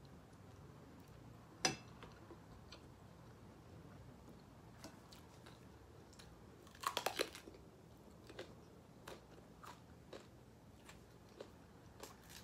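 A person biting and chewing food close to the microphone, with scattered small mouth clicks, one sharp crunch a couple of seconds in and a quick run of crunches about halfway through.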